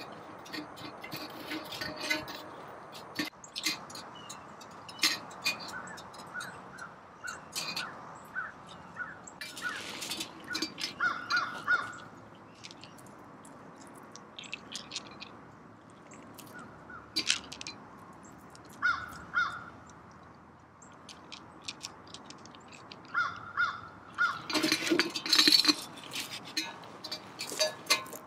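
Pebbles clicking against one another as they are picked up off river gravel by hand, then footsteps on gravel, with a bird calling several times in short repeated calls.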